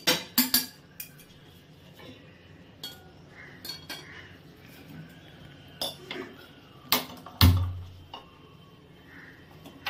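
A kadai (wok) knocking against the gas stove's pan support, with a few separate sharp metal clinks and knocks. The loudest comes about seven and a half seconds in and has a deeper thud.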